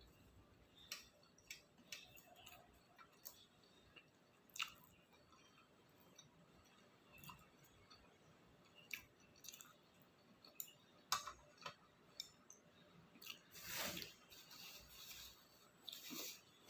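Close-miked chewing of octopus-filled takoyaki: soft, scattered wet mouth smacks and clicks, with a couple of louder chewing stretches near the end.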